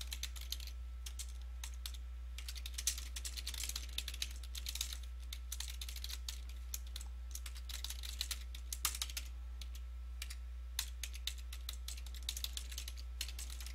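Computer keyboard being typed on: bursts of quick key clicks with short pauses between, over a steady low hum.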